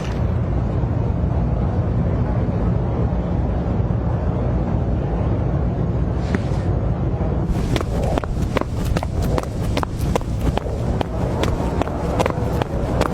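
Steady low rumble, with a run of sharp, irregular clicks or taps starting about halfway through.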